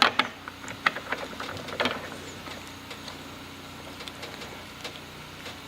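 A quick run of sharp clicks and knocks, as of small hard parts being handled, during the first two seconds, then a faint steady hum with a few light ticks.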